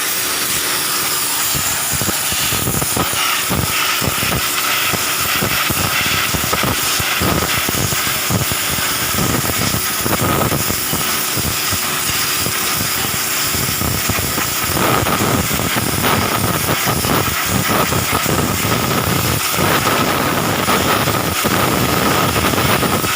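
High-pressure washer spraying: a loud, steady hiss of the water jet with a thin whine held under it, used to blast paint off. The sound grows fuller in the low end about two-thirds of the way through.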